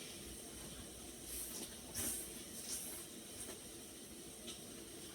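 Noodles being slurped during eating: a few short, hissy slurps.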